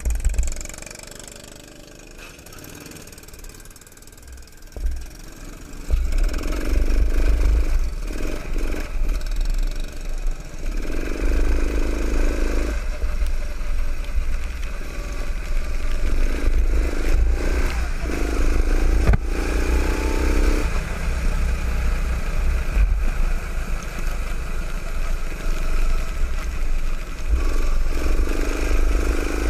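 Go-kart engine from on board the kart. It is quieter for the first six seconds, then about six seconds in it opens up and runs hard, its note rising and falling through the laps over a steady low rumble.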